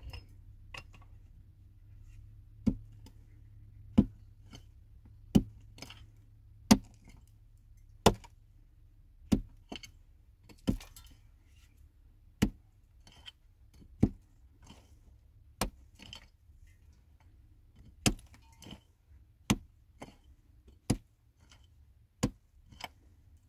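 A hand tool striking again and again at a steady pace, one sharp hit about every second and a half, over a faint low steady hum.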